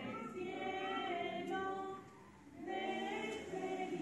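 Singing voices in a melody of held notes, like a small choir, breaking off briefly about two seconds in.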